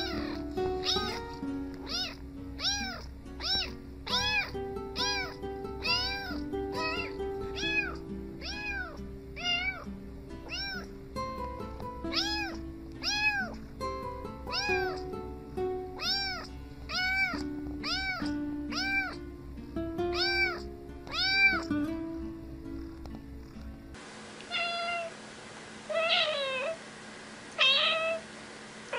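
A tabby kitten meowing over and over, short repeated meows a little more than one a second, with background music underneath. After a cut near the end, a grey adult cat gives three or four louder meows about a second and a half apart.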